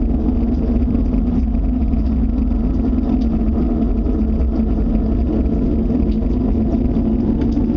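Steady low droning rumble with a hum in its middle, unchanging throughout: the kind of sound reported around the world as strange sounds from the sky.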